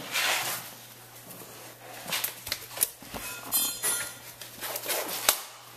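Blue disposable gloves rustling as they are pulled on, with a few sharp knocks and clicks of handling, the sharpest about five seconds in, over a steady low hum.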